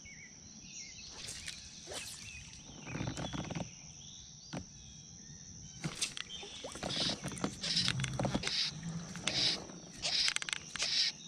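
Fly line being stripped in by hand through the rod guides: short swishing rasps repeating about every half to one second, starting about halfway through. A steady high-pitched insect whine runs underneath.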